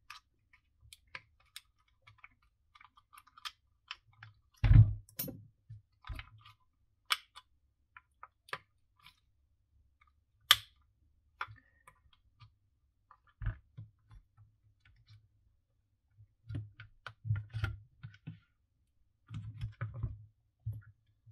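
Scattered clicks and light knocks of the plastic housing parts and motor of a Milwaukee M18 random orbital sander, handled and pulled apart by hand. There is a louder thump about five seconds in and a cluster of soft knocks near the end.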